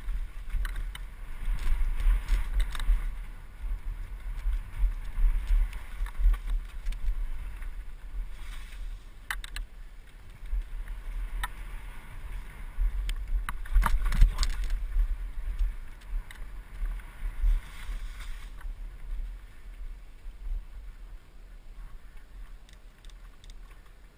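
Mountain bike riding down a dirt forest trail, heard from a helmet-mounted camera: wind rumbling on the microphone, tyres rolling over dirt, and the bike rattling, with sharp knocks over bumps. It quietens over the last few seconds as the bike slows.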